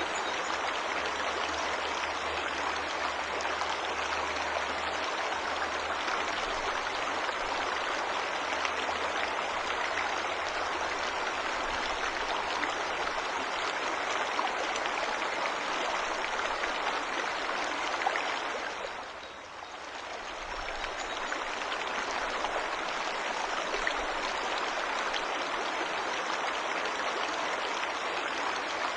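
Waterfall: a steady rush of falling water that dips briefly in loudness about two-thirds of the way through.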